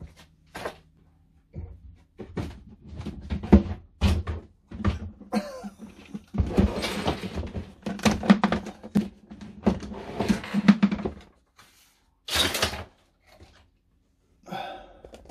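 Rummaging through boxes and packets of spare model parts: a string of knocks and thunks from things being moved and set down, with a longer stretch of rustling in the middle and a short bright rustle near the end.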